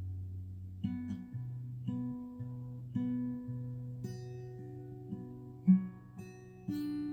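Acoustic guitar music: plucked notes over a low bass line, a new note or chord about once a second, starting suddenly out of quiet.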